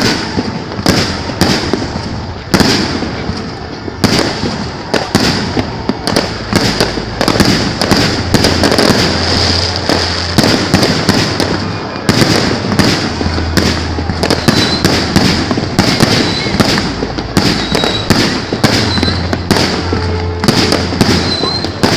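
Fireworks display: shells bursting in rapid succession, a dense run of sharp bangs several a second over continuous crackling.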